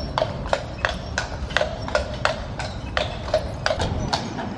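Horse's shod hooves clip-clopping at a walk on a paved path, about three sharp knocks a second, pulling a carriage. A low rumble runs underneath.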